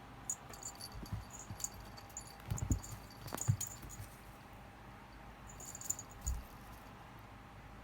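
Light metallic jingling in short scattered bursts, with a few soft thumps, as a cat plays with a jingling cat-teaser toy.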